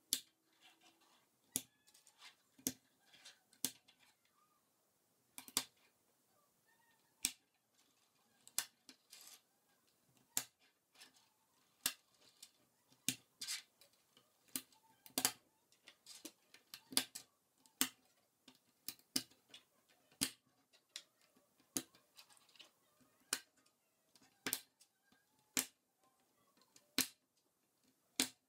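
Plastic K'NEX rods, connectors and panels clicking as they are snapped together and set down on a tabletop: irregular sharp clicks, one or two a second.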